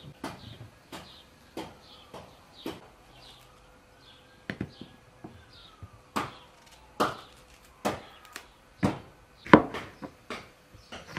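Knife work on onions: light clicks and scrapes as a knife peels an onion, then a cleaver slicing an onion on a wooden cutting board. The cleaver strokes are irregular sharp knocks, louder and more frequent in the second half.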